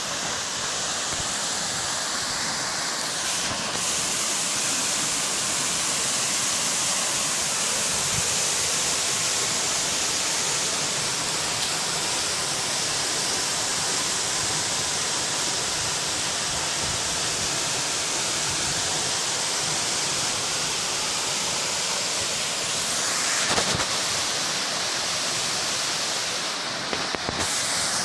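Small waterfall pouring down a rock face into a pool: a steady rush of falling, splashing water.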